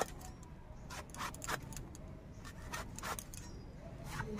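Green eggplant being cut on a boti, a fixed upright curved blade, in a series of short crisp slicing strokes, several in quick succession about a second in and again about three seconds in.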